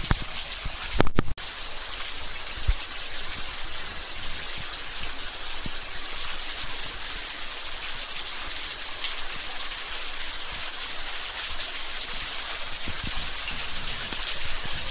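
Steady patter and trickle of water dripping from a mossy rock overhang into a stream pool. There is a short, loud knock about a second in.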